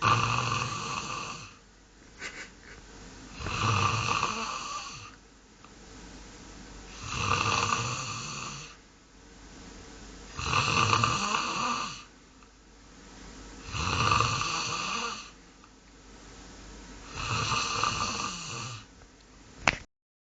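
Domestic goose making a snoring sound, six times at a slow even pace, each snore lasting about a second and a half. Near the end a sharp click, and the sound cuts off.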